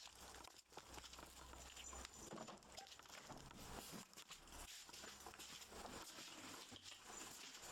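Faint, irregular pattering of a rough collie puppy moving about.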